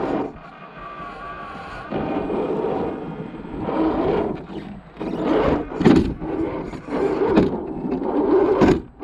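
Axial SCX10 II RC rock crawler's electric motor and gear drivetrain whining as it crawls over rough ground, swelling louder in several surges.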